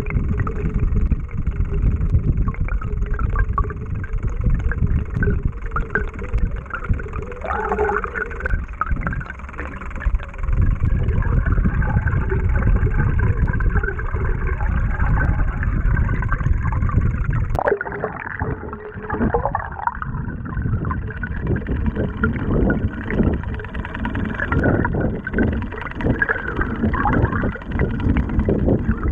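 Bladed jigs (chatterbaits) retrieved underwater, their blades vibrating in a fast low buzz, heard through the water. About eighteen seconds in the sound changes abruptly as a second bladed jig takes over.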